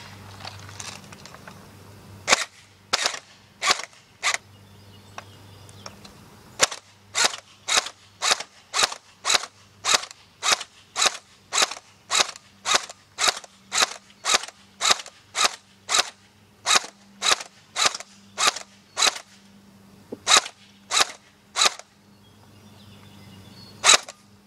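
AfterMath Kirinex M4-style airsoft rifle firing single shots on semi-automatic. Four shots, a two-second pause, then a steady run of about thirty shots at roughly two a second with a short break near the end, and one last shot.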